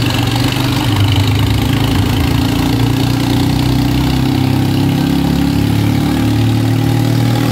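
Swaraj 855 tractor's three-cylinder diesel engine running steadily at a slow road pace, its pitch wavering only a little, heard from the driver's seat.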